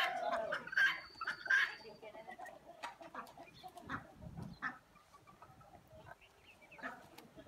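Farmyard poultry clucking and calling, a quick run of loud calls in the first two seconds, then fainter scattered calls.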